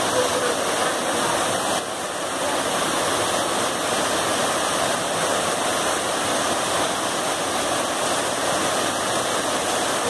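Waterfall pouring over rocks into a pool: a steady, dense rush of falling water, dipping slightly in level about two seconds in.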